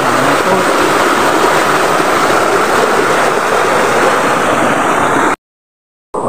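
Small stream cascading over rocks into a pool, a steady rush of water. It cuts off abruptly to dead silence for under a second near the end.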